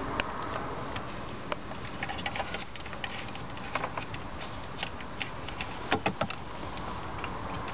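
Scattered small clicks and taps of plastic dashboard parts and cable being handled, with a quick run of sharper clicks about six seconds in, over a steady background hiss.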